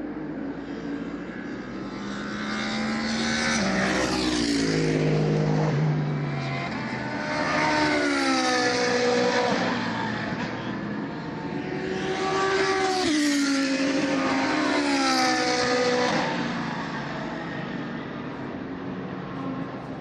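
GT3 race cars passing at speed one after another, about four pass-bys, each engine note swelling and then dropping in pitch as the car goes by.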